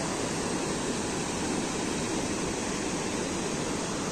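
Rain-swollen mountain stream rushing over rocks: a steady white-water noise. Heavy rain has raised both its flow and its sound.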